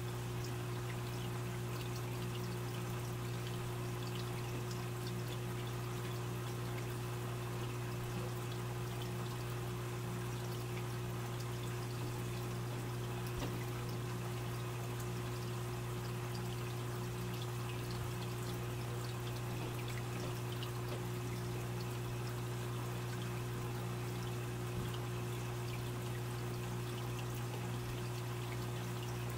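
Aquarium water trickling and pouring steadily, with faint scattered ticks, over a steady low hum.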